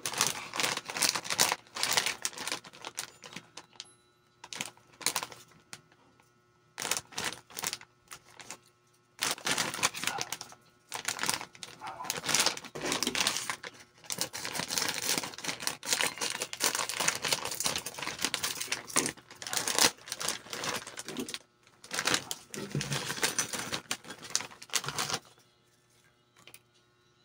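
Clear plastic snack bag of fish crackers crinkling in bursts as it is handled, snipped open with scissors, and the crackers tipped out into a ceramic bowl, with short pauses between bursts.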